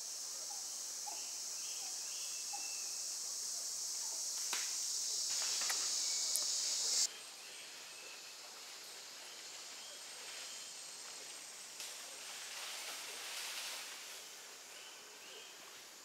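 A cicada's high, steady buzz that grows louder, then cuts off suddenly about seven seconds in; a fainter insect hiss carries on afterwards, with a few short faint chirps early on.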